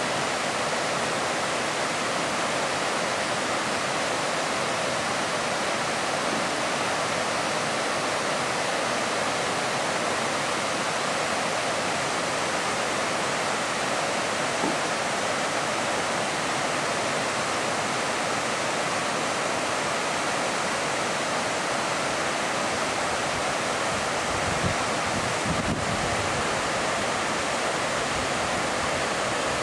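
A waterfall cascading over tiered rock ledges, with a steady, even rush of falling water.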